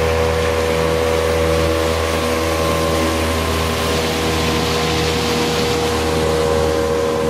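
Outboard motor running steadily at speed, with a rush of water from the boat's wake. The engine note holds one pitch throughout.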